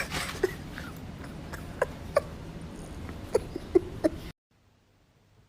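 Several short, high-pitched yelps or squeaks, scattered irregularly over about four seconds, then the sound cuts off abruptly into dead silence.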